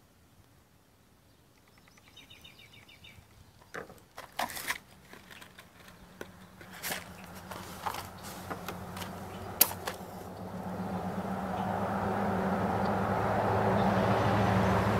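A vehicle's engine hum swells gradually from about halfway through and peaks near the end, like a vehicle approaching. Over it, scattered light taps and clicks of small metal tools and matches handled on a wooden table, with a brief high chirp about two seconds in.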